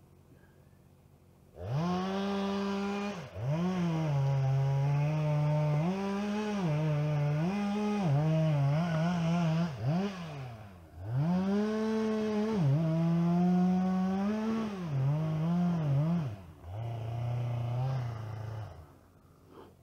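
Chainsaw throttled up about two seconds in and cutting wood, its engine pitch repeatedly dropping and recovering as the chain bites under load. It is let off and revved up again once midway, then runs slower near the end before cutting off.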